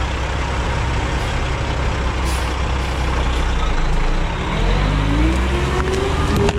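Heavy diesel engine running steadily, then revving up from about four and a half seconds in, its pitch rising.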